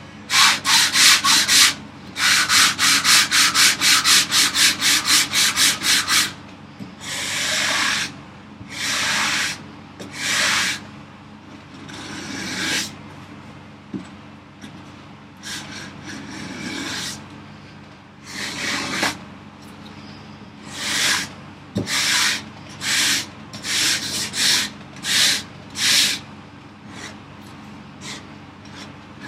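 Hand-tool strokes scraping across the end grain of a wooden vise chop: a quick run of short strokes, about three a second, then slower, longer strokes with pauses between them.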